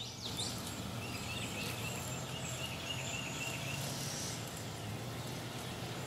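Quiet outdoor yard ambience: a steady low hiss, with a high trill of rapidly repeated short notes from about a second in, lasting about two seconds.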